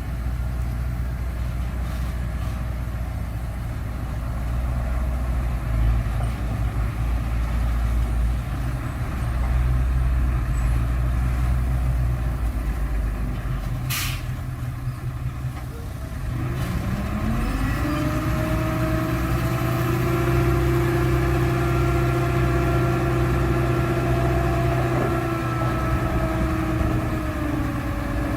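Heavy earthmoving machine's diesel engine running low and steady, then revving up about two-thirds of the way in and holding at high revs. A short, sharp hiss comes about halfway through.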